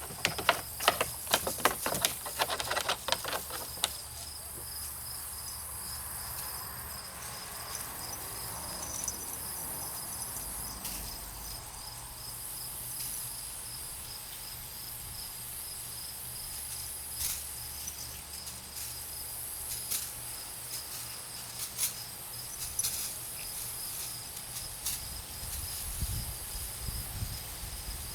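Steady high-pitched chirring of insects in the grass. A quick run of clicks and rustles comes in the first few seconds.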